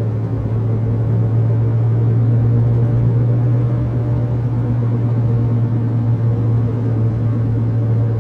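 A car driving at a steady speed, with a constant low engine and road drone and no pass-by.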